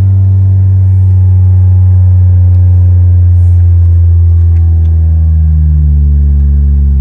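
Toyota Yaris (Vios) engine idling, heard from inside the cabin, a steady low hum whose pitch slowly sinks over several seconds as the idle settles after starting.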